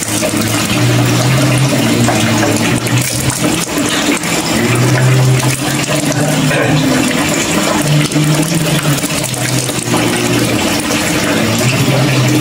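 Water poured from a cut-off plastic jug over a man's head and face, splashing and running off into a shallow pool of spring water on the rock floor.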